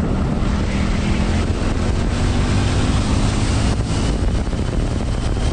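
Honda Super Cub 125's small single-cylinder engine running at a steady speed while riding, with wind rushing over the microphone.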